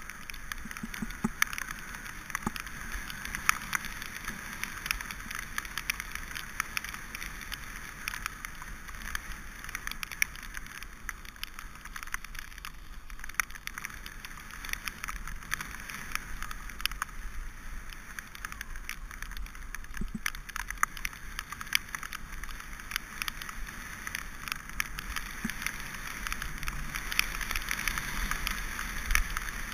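Mountain bike rolling over a wet gravel and mud track: steady tyre noise with frequent sharp clicks and rattles from stones and the bike, over a low wind rumble on the microphone.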